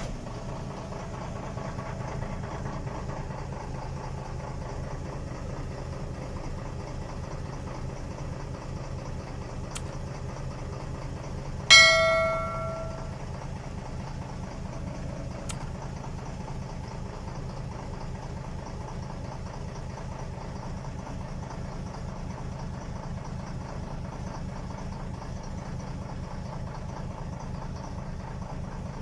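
Steady engine idling sound with a fast, even pulse. About twelve seconds in, a single bell strike rings out and dies away over a second or so.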